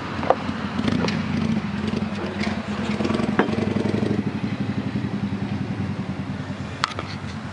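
Small nitro engine of an HPI Savage RC truck running with a steady, fast-pulsing drone, with a few sharp clicks of handling over it.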